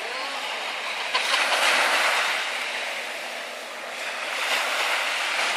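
Small sea waves washing and lapping close by, swelling louder, easing off and swelling again.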